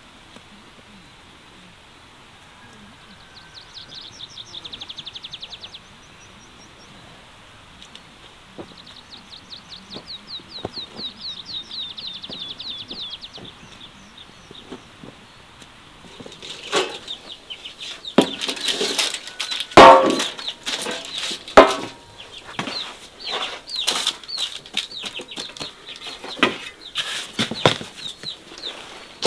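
A songbird's fast, high trill, heard in two bouts in the first half. From about halfway on, a run of sharp, irregular slaps and taps, loudest about two-thirds through, as hands handle floured bread dough on a wooden board.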